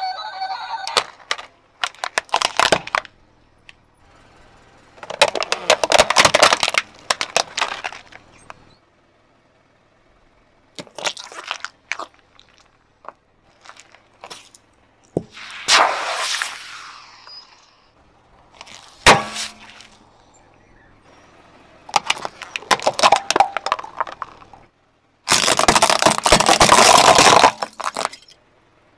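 A car tyre slowly crushing toys and small objects, heard as a string of separate bursts of cracking and crunching plastic with quiet gaps between them. A short electronic tone sounds right at the start, a hiss fades out about halfway through as a spray can goes under the wheel, a single sharp crack follows a few seconds later, and a long dense burst of crackling comes near the end.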